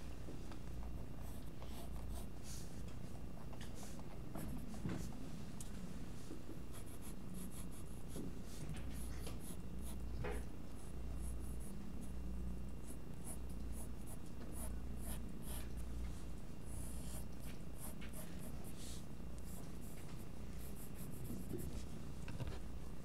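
Graphite lead in a metal-tipped lead holder scratching across drawing paper in short, irregular sketching strokes, over a steady low hum.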